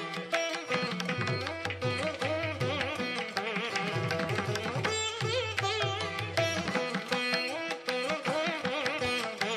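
Background instrumental music: a melody whose notes bend up and down in pitch, over steady drumming.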